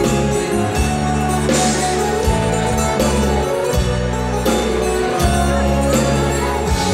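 Live band music played loud, with a deep bass line whose notes change every second or so under a full, dense accompaniment.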